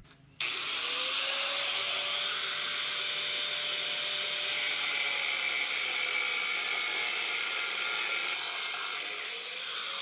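Angle grinder with a thin 1 mm Diablo cutoff wheel cutting through B7 alloy-steel threaded rod: a steady grinding hiss over a faint motor whine, starting abruptly about half a second in.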